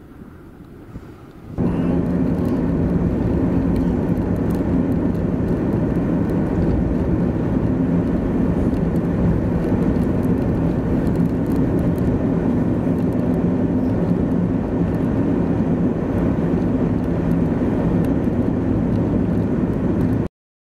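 Steady rumble of a vehicle driving on a snowy highway, heard from inside: tyre, road and engine noise that starts abruptly about a second and a half in and cuts off suddenly near the end. Before it, a fainter sound of an approaching truck.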